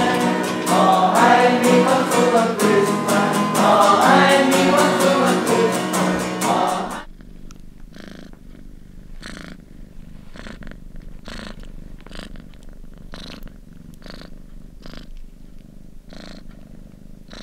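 Loud music with singing cuts off suddenly about seven seconds in. A cat's purring follows, a soft, even pulse a little under twice a second.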